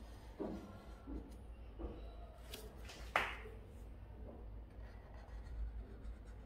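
Black Sharpie marker drawing on paper along a ruler, with quiet handling knocks and one sharper clack about three seconds in.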